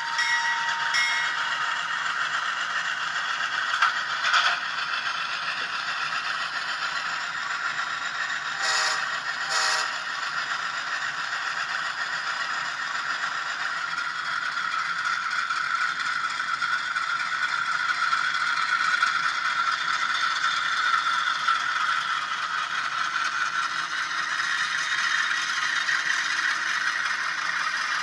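Diesel locomotive engine sound from an ESU LokSound 5 Nano DCC sound decoder, played through the tiny speaker inside an N scale Conrail Dash 8-40C model: a steady, thin, rattly running sound. The last of a horn note trails off in the first second, a few short clanks come about 4 and 9 seconds in, and the tone lifts a little near the end.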